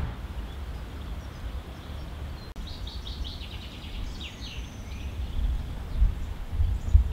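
A small songbird singing from about three seconds in: a run of quick high chirps and a few short downward-sweeping notes. Under it runs a low, gusty rumble.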